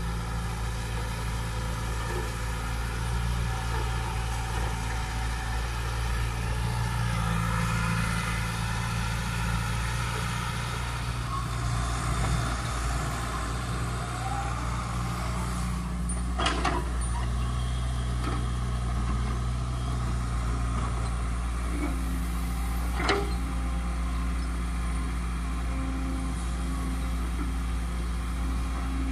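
Caterpillar crawler excavator's diesel engine running steadily under hydraulic load, its pitch shifting as the machine digs, swings and dumps. Two short sharp knocks come in the second half.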